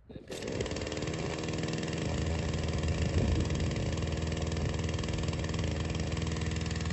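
Warm two-stroke petrol chainsaw pull-started without the choke, catching at once and then idling steadily.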